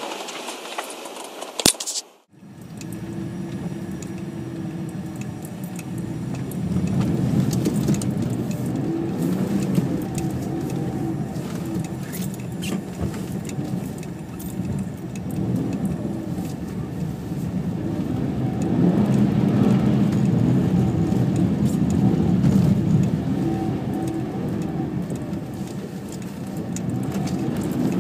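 BMW E46 328i's inline-six engine heard from inside the cabin, its revs rising and falling as the car is slid around on snow, with light rattling. About two seconds in, a louder hissing shot cuts off abruptly before the cabin sound begins.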